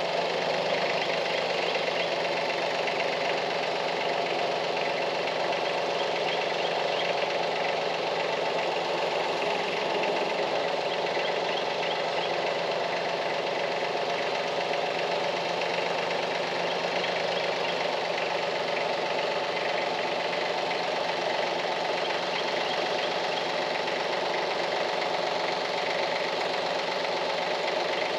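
Compact diesel tractor's engine running steadily as the tractor drives slowly with its front loader raised.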